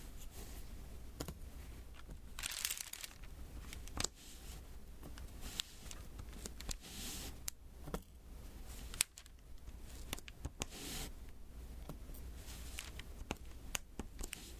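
Diamond painting handled close to the microphone: small sharp clicks and taps, scattered irregularly, with a few short crinkling rustles of plastic film and sticky canvas.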